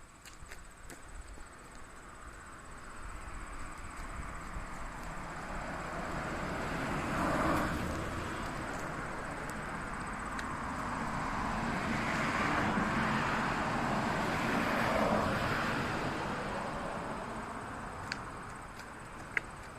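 Vehicles passing by, the noise swelling and fading: one passes sharply about seven seconds in and another, broader pass follows about twelve to fifteen seconds in. A couple of short clicks near the end.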